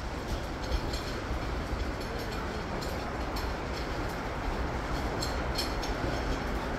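A wheelchair being pushed along a walkway floor: a steady rolling rumble, with footsteps about twice a second.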